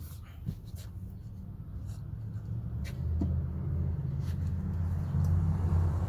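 Low engine rumble of a motor vehicle, growing louder about halfway through, with a few light clicks in the first seconds.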